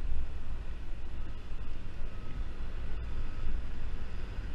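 Wind rumbling on the microphone over the steady running of a Yamaha Zuma 50cc scooter's small engine while riding.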